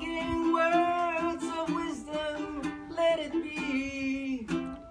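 Ukulele strummed in steady chords, with a voice singing along in long held notes.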